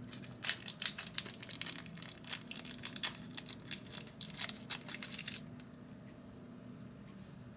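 Packaging of a small HDMI right-angle adapter being crinkled and torn open: dense, irregular crackling that stops about five seconds in. A steady low hum runs underneath.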